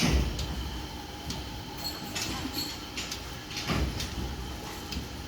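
Foot pedal of a manual hydraulic pump on a two-wheeler service lift being pumped. Each stroke gives a clunk with a low thud: one sharp one right at the start, then two more roughly every one and a half to two seconds, as the lift is raised.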